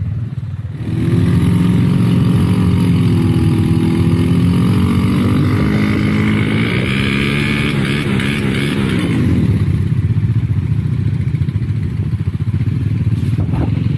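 Motorcycle engine running as the bike is ridden, its pitch rising and falling with the throttle from about a second in until around nine seconds, then settling into a steadier low rumble.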